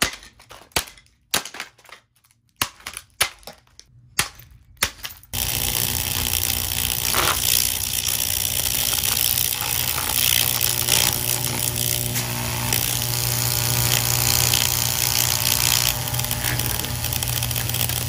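A handful of sharp knocks at uneven intervals, then about five seconds in a power tool starts abruptly and runs steadily with a loud, buzzing hum.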